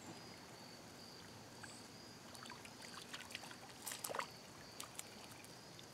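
Small bluegill splashing and flicking at the pond surface as it is reeled in on light line: a few faint, short splashes about two to four seconds in, the strongest near four seconds.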